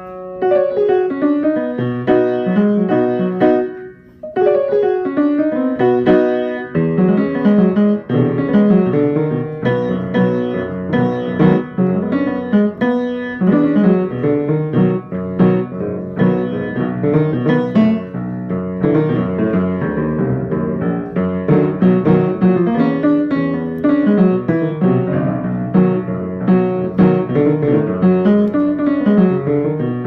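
Piano played by hand: a continuous flow of notes and chords, with a short break about four seconds in.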